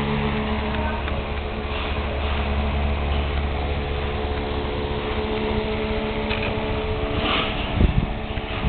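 1930 GEC (General Electric Company, English) desk fan, freshly cleaned and lubricated, running with a steady motor hum and blade whir. A few low thumps come near the end.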